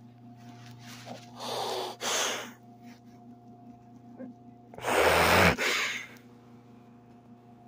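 A person crying right at the microphone, drawing loud sniffling breaths. There are two of them, one about a second and a half in and a louder one about five seconds in.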